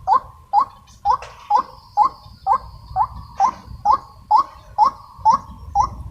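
White-breasted waterhen giving its repeated 'wak' call: short rising notes, about two a second, in a steady unbroken series.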